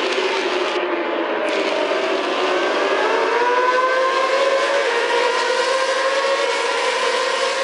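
A pack of Moto2 racing motorcycles passing together, their four-cylinder engines rising in pitch as they accelerate out of a bend about two seconds in, then holding a high, steady note as they run down the straight.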